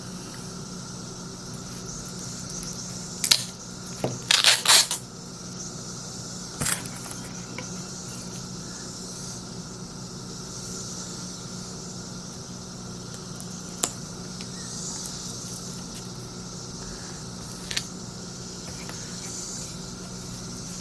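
Scattered sharp clicks and crackles from handling and dismantling a laptop battery pack, with a short cluster of them about four seconds in. A steady low electrical hum runs underneath.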